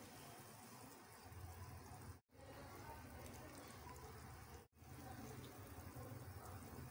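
Faint, steady bubbling of water heating in a pan with fried green chillies, the tempering for khaman dhokla. The sound cuts out suddenly twice.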